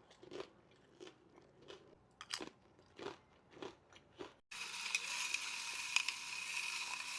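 Close-miked crunching of crackers being chewed, about seven crunches at a steady pace. About four and a half seconds in, a louder steady hiss starts abruptly and cuts off suddenly at the end.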